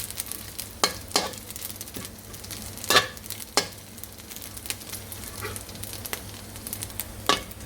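Ikan bilis (dried anchovies) sizzling as they fry in oil, nearly browned, while a spatula stirs them and knocks against the pan several times.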